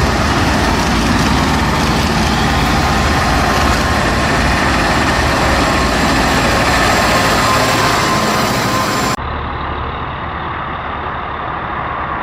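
Heavy truck engine running steadily. About nine seconds in the sound cuts abruptly to a duller, quieter recording of an engine running.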